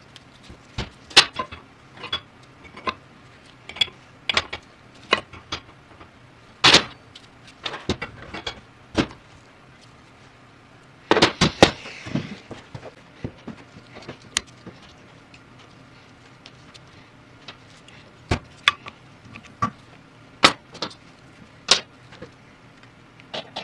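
Tools and metal pump parts being handled on a workbench during power steering pump reassembly: scattered sharp clicks and clinks, with a quick flurry of them about eleven seconds in.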